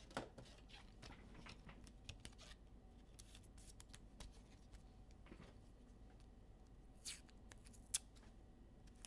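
Near silence with faint handling of trading cards and packaging: a sharp click just after the start, a short rustle about seven seconds in, and another sharp click about eight seconds in.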